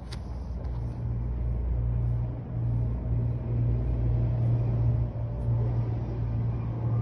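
Steady low rumble, with one sharp click right at the start.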